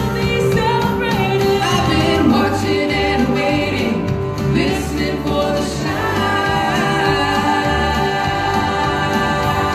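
Women singing a gospel song with instrumental accompaniment.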